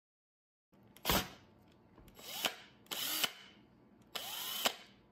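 Cordless drill run briefly three times, each burst half a second or less, after a sharp click about a second in; a drill bit is fitted in its keyless chuck.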